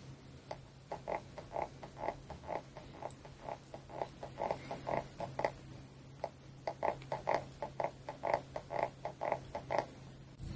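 Rhythmic short squeaks, about three a second, in two runs with a brief pause between them, from repeated massage strokes.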